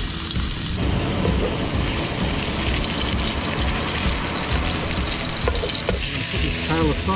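Pieces of salmon sizzling in a frying pan on a portable gas stove, a steady hiss, as metal tongs move them about.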